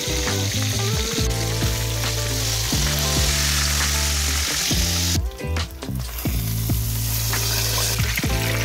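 Battered fish deep-frying in hot oil in a cast-iron skillet, a steady dense sizzle that dips briefly about five seconds in. Music plays underneath.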